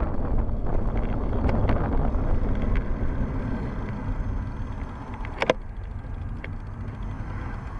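Wind on the microphone of a bike-mounted camera, with the rumble of a road bicycle rolling on asphalt, fading gradually as the bike slows almost to a stop. A single sharp click about five and a half seconds in.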